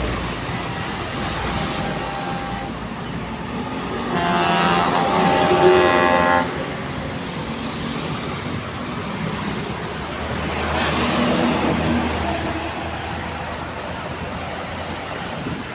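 A vehicle's ship-style air horn blasts once for a little over two seconds, about four seconds in, over steady highway traffic; later a vehicle passes by.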